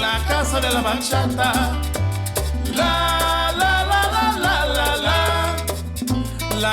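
Background music with a Latin, salsa-like beat: a steady bass line, percussion and a melody line that sounds like singing.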